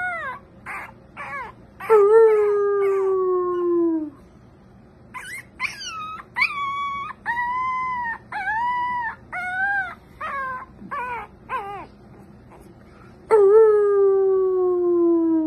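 Cocker spaniel puppy howling: short yips, then a long howl falling in pitch about two seconds in, a run of short arching yelps and whines, and a second long falling howl near the end.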